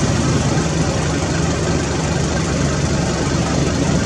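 Steady low rumble with a hiss over it, unbroken throughout.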